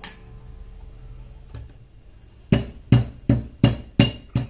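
Stainless steel milk pitcher of frothed milk knocked against the counter six times in quick succession, about three knocks a second, to settle the foam before the latte pour.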